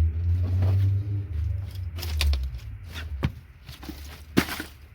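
Low rumble of handling noise on the microphone, then a few sharp clicks and knocks as small parts are handled, the loudest about four and a half seconds in.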